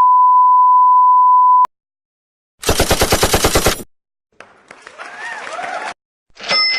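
A run of stock sound effects played one after another: a steady censor beep that stops after about a second and a half, then a machine-gun burst of about a dozen rapid shots, then a noisy effect with a wavering pitch, and a new effect starting near the end.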